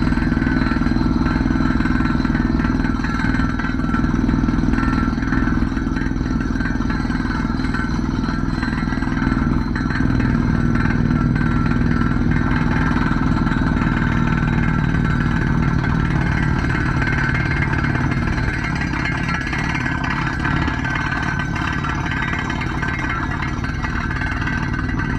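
Drilling machine running with a steady engine drone and some clatter; its note drops lower about ten seconds in.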